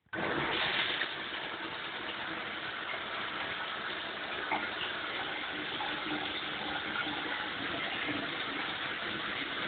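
Water turned on suddenly and spraying steadily from a shower head freshly cleaned of a clog, a little louder for the first second.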